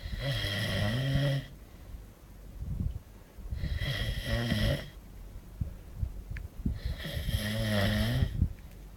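A man snoring: three loud snores about three seconds apart, each lasting a second or so, with softer noise between them.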